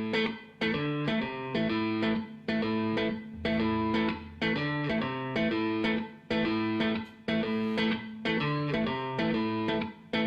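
Blues song intro: electric guitar playing a repeating riff on its own, in short phrases broken by brief gaps, with no singing.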